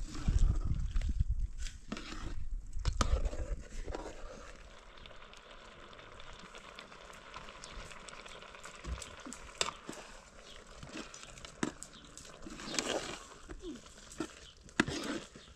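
A ladle stirring a large pot of simmering liquid over an open wood fire, with scattered clicks and light crackling. A low rumble fills the first few seconds, and a few louder rustles and knocks come near the end.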